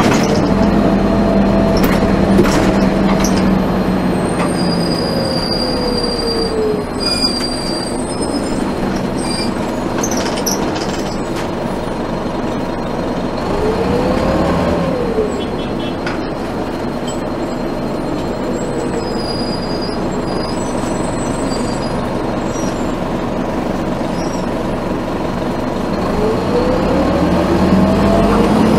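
On board a 1996 NovaBUS RTS bus: the Detroit Diesel Series 50 engine and Allison five-speed automatic drop in pitch over the first several seconds as the bus slows, with brief high-pitched squeals. The engine tone rises and falls briefly about halfway through and climbs again near the end as the bus accelerates.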